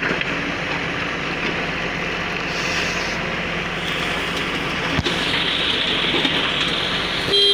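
Engine of a Bull earth-moving machine running steadily under work, with a brief horn toot right at the end.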